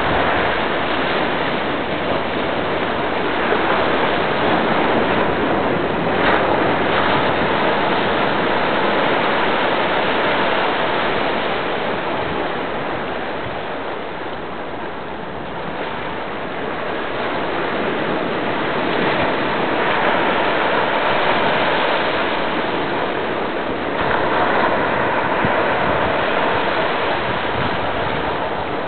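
Sea surf breaking and washing over rocks and sand on the shore, a steady rush that slowly rises and falls as the waves come in.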